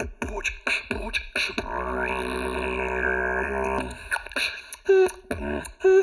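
D-low beatboxing: sharp mouth-percussion clicks over a held, hummed pitched tone with strong overtones. Loud, short pitched vocal stabs come in a rhythm over the last couple of seconds.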